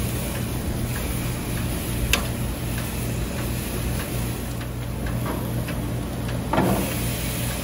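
Metal tongs clicking against grill grates as steaks are turned, over a steady low hum. There is a sharp click about two seconds in, and near the end a thud as the heavy steak press is set down on the steaks.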